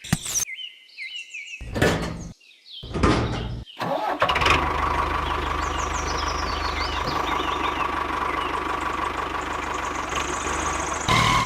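Small motor of a home-made mini construction machine, heard in a few short clipped bursts and then running steadily for several seconds at an even pitch, cutting off abruptly at the end.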